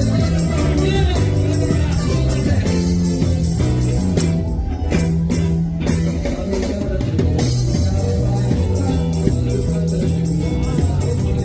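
Loud amplified band music with a stepping bass line, guitar and a steady drum beat, with a voice singing at times.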